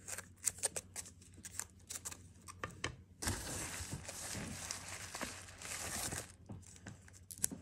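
Hard plastic graded card slabs being handled: light clicks and taps, then about three seconds of steady rustling and crinkling of packaging, then a few more clicks near the end.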